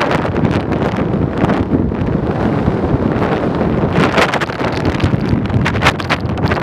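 Wind buffeting the microphone of a tandem paraglider in flight: a loud, continuous rush with uneven gusts.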